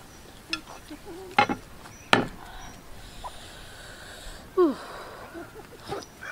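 Eating at a bowl with chopsticks: a few sharp clicks of the chopsticks against the bowl, a long drawn-in breath, and a short falling squeak about four and a half seconds in. A rooster starts to crow right at the end.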